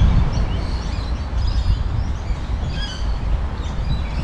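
Birds chirping in short scattered calls over a loud, uneven low rumble.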